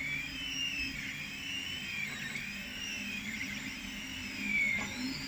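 3D printer's stepper motors whining in criss-crossing rising and falling tones as the print head moves back and forth, over a steady low hum of the printer's fans.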